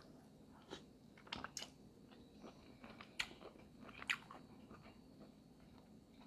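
Faint, close-miked chewing of a boiled shrimp, with wet mouth clicks and smacks, the sharpest about three and four seconds in.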